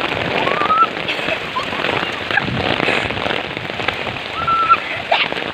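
Heavy rain pouring down, a dense steady hiss of drops hitting the ground and surfaces around.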